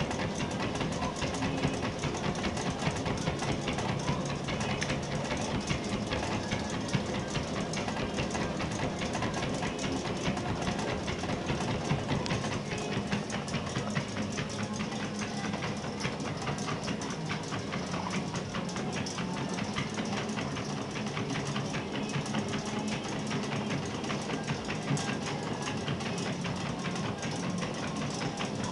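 Dog treadmill running steadily under a trotting American Staffordshire terrier: an even mechanical whir with a dense, rapid clatter.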